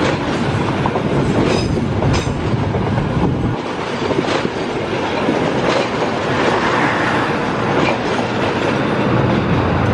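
Passenger train coaches rolling past close by: a loud, steady rumble of steel wheels on rail, broken now and then by sharp clacks as the wheels cross rail joints.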